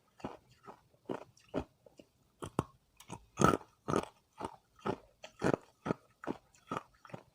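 Hard ice being chewed close to the microphone: a steady run of sharp crunches, about two to three a second, one louder bite about three and a half seconds in.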